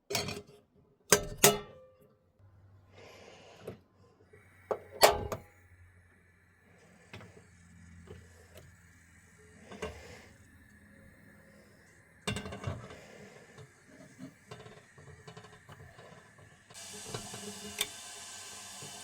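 Knocks and clinks of camping cookware being handled, then a steady hiss that starts suddenly near the end: a camping gas stove burning under the kettle.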